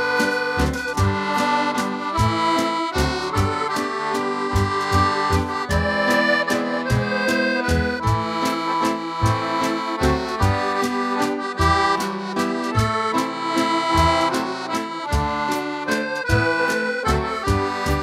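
Background music: an accordion playing a traditional tune, with held chords and regular low bass notes.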